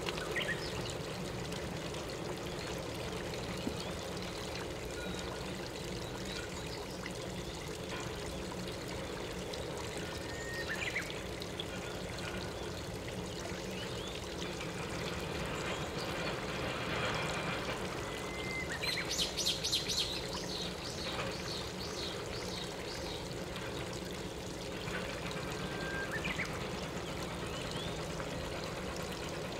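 Steady rush of flowing stream water, with a few short bird chirps on top and a quick run of high chirping notes about two-thirds of the way through.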